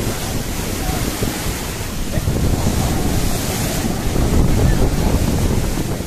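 Rough-sea surf breaking and washing up over a sand beach, a dense continuous roar that swells louder about halfway through, with wind buffeting the microphone.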